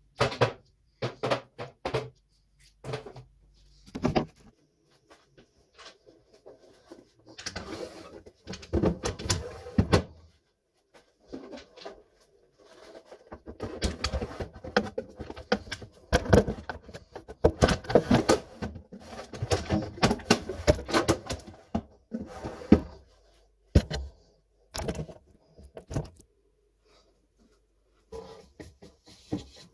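Household items being handled while a refrigerator is organised: repeated knocks, clicks and clatters of containers, jars and lids being picked up and set down, with busier handling noise in the middle.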